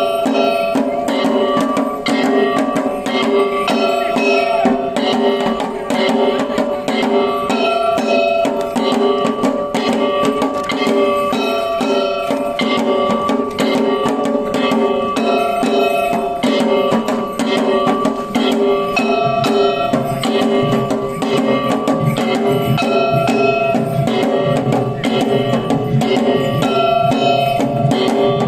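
Kagawa shishimai lion dance music from the troupe's own noisemakers: fast, steady drumming with ringing metallic tones held over it.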